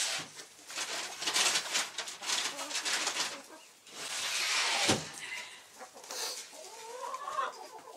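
Grain treats for chickens rattled in a container and poured out, a clattering run followed by a loud pour about four seconds in, with hens clucking.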